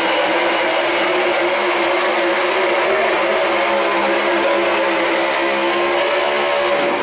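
Competition pulling engine running at full throttle under heavy load as it drags the weight sled down the track. It is loud and steady, with a slight drop in pitch near the end.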